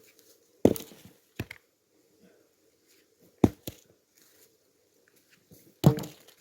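Axe blows splitting firewood logs: three heavy chopping strikes about two and a half seconds apart, with a couple of lighter knocks between them.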